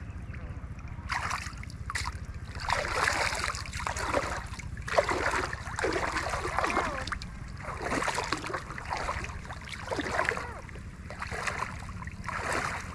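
Water splashing in a series of uneven bursts, roughly one a second, over a steady low rumble.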